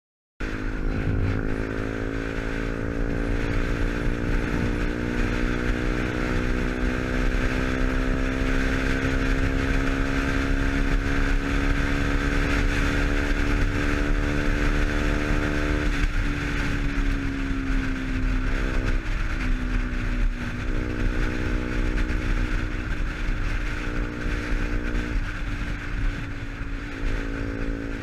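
KTM Duke 125's single-cylinder engine running through an aftermarket Arrow exhaust while the bike is ridden. The engine note climbs slowly for a little over half the time, then falls, and afterwards holds with a few brief dips and steps in pitch.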